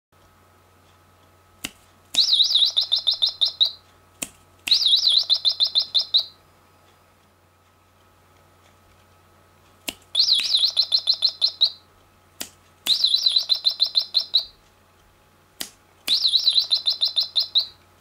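Five finger snaps, each setting off a sound-activated toy bird's electronic tweeting about half a second later: a rapid, pulsing, warbling chirp that lasts about a second and a half before stopping.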